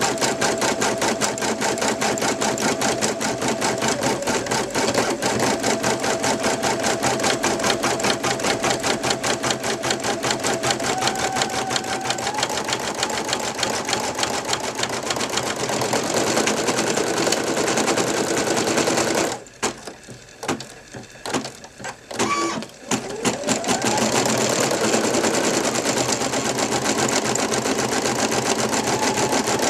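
Brother NV2600 computerized embroidery machine stitching at speed: a fast, even needle rattle over its motor hum. About two-thirds of the way through it stops for some three seconds with a few clicks, then starts again with a short rising whine.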